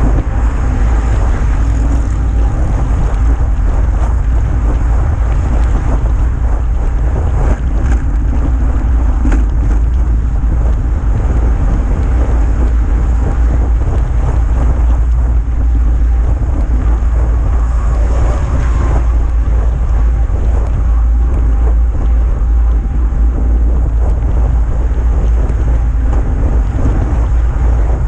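Wind buffeting the microphone of a GoPro action camera on a moving road bicycle: a loud, steady low rumble.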